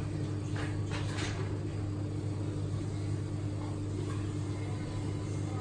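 Steady low hum of kitchen machinery, with a few faint knocks of kitchen clatter in the first second or so.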